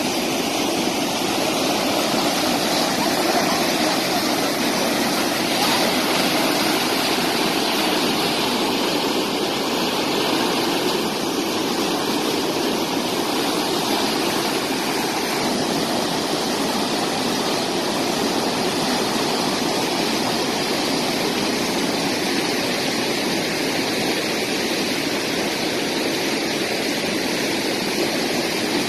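Muddy flash-flood water rushing in a torrent over a road and through a channel: a loud, steady rush of water.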